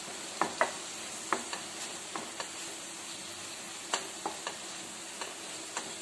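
Tomato, mint and spice masala sizzling in a nonstick kadai while a wooden spatula stirs it, with irregular sharp taps and scrapes of the spatula against the pan.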